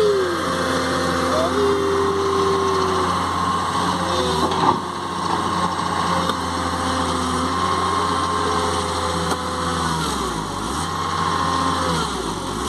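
Diesel engine of an L&T-Komatsu crawler excavator running steadily. About ten seconds in, the low engine note sags and wavers as it takes load while the machine works, puffing black exhaust.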